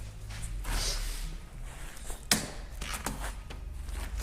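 Handling noises from work on a motorcycle shipping crate's straps: a soft swish near the start, then one sharp knock about two seconds in, with a few lighter clicks after it.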